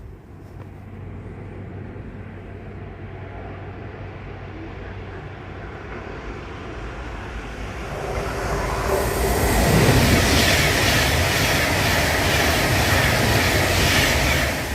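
A train passing at speed: it rises as it approaches, runs loud with rushing wheel and rail noise for about five seconds, then drops away sharply near the end.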